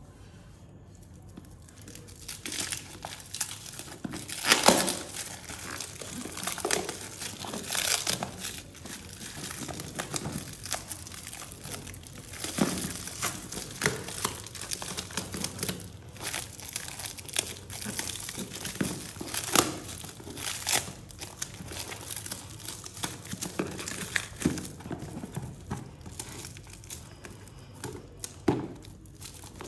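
Clear plastic shrink-wrap being torn and peeled off a cardboard box, starting about two seconds in: irregular crinkling and rustling with sharp tearing crackles.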